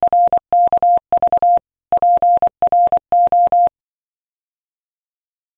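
Electronic beeping like Morse code: a single steady mid-pitched tone keyed on and off in short and long beeps, in quick groups. It stops about two-thirds of the way through.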